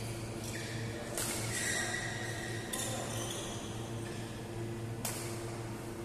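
Badminton rackets striking a shuttlecock in a doubles rally: three sharp hits, over a steady low hum.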